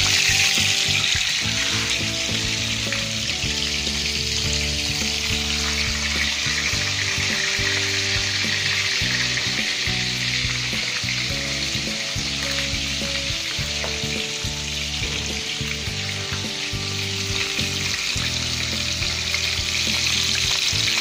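Fish pieces sizzling and spitting steadily as they fry in hot cooking oil in a pan on a gas stove. Low background music plays underneath.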